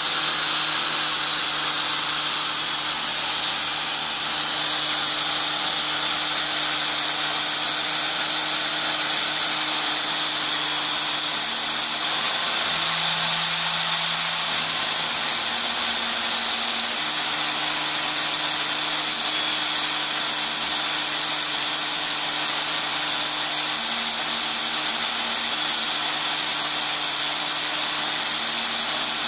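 Angle grinder with a flap grinding disc running steadily while a steel chisel is ground against it, a continuous whine with the hiss of metal grinding. About thirteen seconds in the chisel comes off the disc briefly and the motor's note rises as it runs free.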